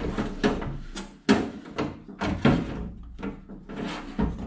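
Metal window regulator clanking and scraping against the sheet-metal inside of a 1970 Datsun 521 truck door as it is worked into place by hand: a string of irregular knocks, the sharpest a little over a second in.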